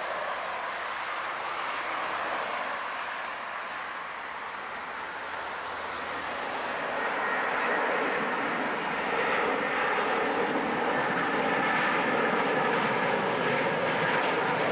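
Jet engines of a twin-engine widebody airliner at takeoff thrust as it lifts off and climbs out: a steady jet rush that grows louder about halfway through, with a whining tone coming in on top.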